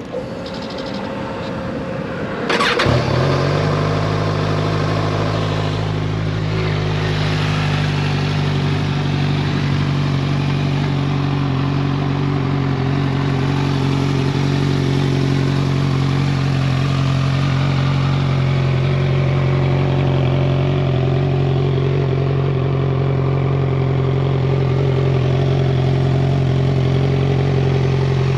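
2015 Kawasaki Ninja 1000's inline-four engine, breathing through Vance & Hines CS One slip-on mufflers, being started. The starter whirs for about two and a half seconds, then the engine catches and settles into a steady idle.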